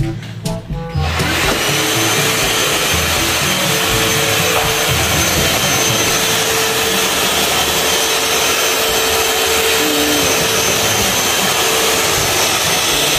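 Eureka Lightspeed cordless stick vacuum starts about a second in and runs steadily with an even whine as its floor head is pushed over a hardwood floor.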